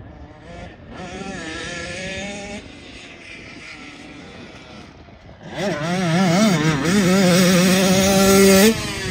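Dirt bike engine revving as it rides the track: a first rising pull about a second in, then a louder, closer run from about halfway, its pitch rising and falling with the throttle before holding steady and stopping abruptly near the end.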